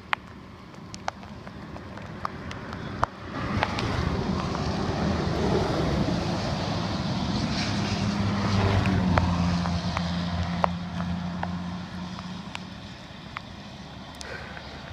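A road vehicle passing by: its engine hum and tyre noise swell from a few seconds in, peak around the middle and fade away. Faint scattered clicks sound throughout.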